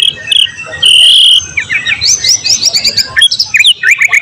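White-rumped shama (murai batu) singing: a few clear held whistles, then from about two seconds in a fast run of rising and falling notes.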